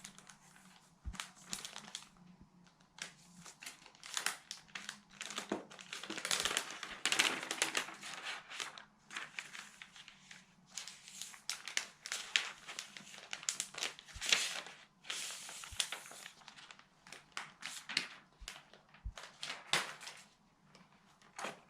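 Plastic wrapping being peeled off a new laptop, crinkling and rustling in irregular handfuls, with a few light taps of handling.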